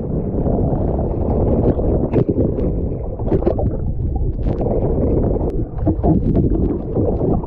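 A windsurf board planing through choppy sea: a dull rush of water and wind buffeting an action camera's microphone, with scattered splashes. Once the camera goes under the surface, the water turns muffled and gurgling.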